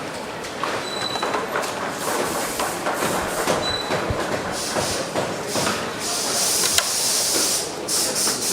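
Factory assembly-line noise: clatter and clicks, short high beeps from equipment about a second in and again near 3.5 s, and loud bursts of air hissing from about the middle onward.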